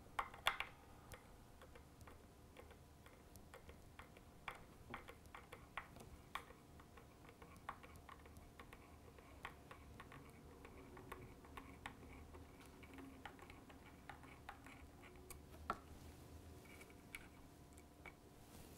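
Faint, irregular small clicks and ticks of a Phillips screwdriver unscrewing the factory strap-button screw from a Fender Stratocaster's body, with a few sharper clicks near the start.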